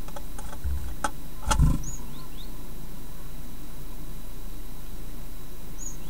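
Sharp clicks and knocks of a great tit moving on the wooden floor of a nest box, the loudest thump about a second and a half in. Then come short, very high, thin great tit calls, a couple about two seconds in and another near the end, over a steady electrical hiss.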